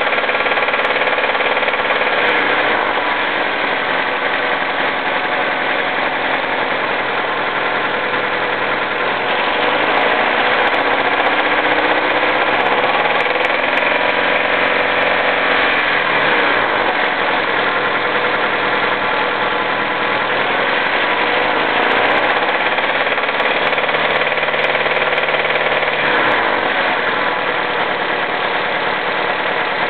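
Honda D16Z6 1.6-litre SOHC VTEC four-cylinder engine running with a knock, revved up and held for a few seconds twice, falling back toward idle each time.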